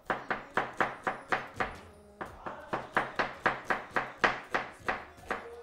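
Knife slicing an onion on a cutting board: a steady run of sharp chops, about four a second, with a brief pause about two seconds in.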